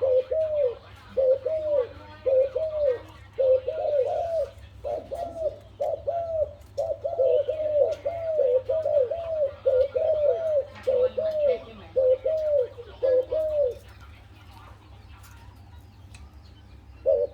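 Zebra dove (Malay dove) cooing: a long, quick series of short, bent coo notes, about two a second, that breaks off near the end and starts again.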